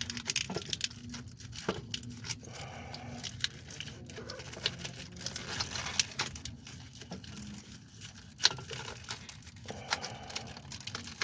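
Irregular clicks, clinks and rustling of tools and parts being handled and moved aside in a car's engine bay, with a few sharper knocks.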